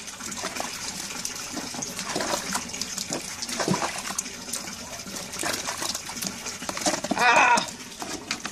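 Water sloshing and splashing in a plastic bucket as a cat is bathed by hand. About seven seconds in there is a short, wavering meow from the cat.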